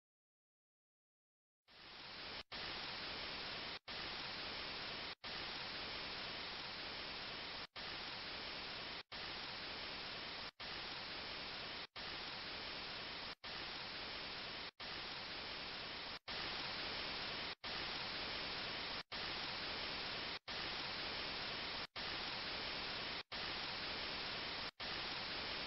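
Steady, even static-like hiss that cuts in about two seconds in after silence and drops out for an instant roughly every second and a half.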